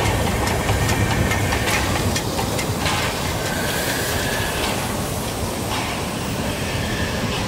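Narrow-gauge steam train pulling into the station: the locomotive passes and the coaches roll by, wheels clicking over the rail joints over a steady rumble. A hiss sounds from about three to five seconds in.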